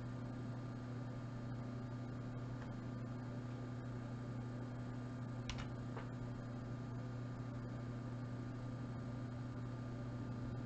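Steady low electrical hum, a mains hum with no other sound over it except two faint ticks a little past the middle.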